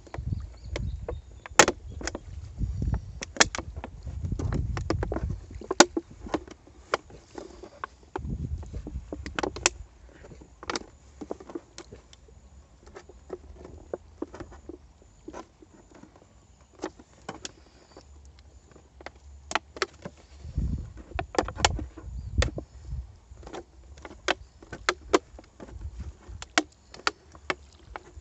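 Thin plastic PET bottle crackling and clicking irregularly as it is handled, slit along its side and the cut plastic pressed inward. There are stretches of low rumble near the start and about two-thirds of the way through.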